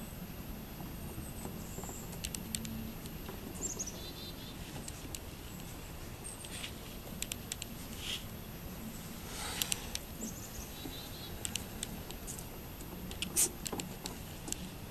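Seven-week-old Yorkiepoo puppies' paws and claws pattering and clicking on wooden deck boards, in scattered light taps, with a sharper click near the end. Small birds chirp in short high falling notes in the background several times.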